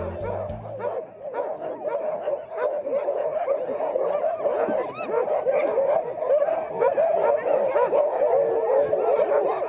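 Sled dogs barking and yelping together in a dense, continuous chorus: a team excited and eager to run.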